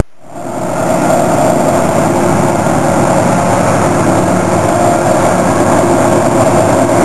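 Iron ore train running by: a loud, steady mechanical rumble from its wagons and diesel locomotives, with a couple of steady tones held over it. It builds up within the first second and then holds level.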